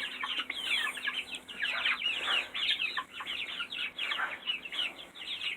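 A flock of chickens clucking and chattering, many short overlapping calls throughout.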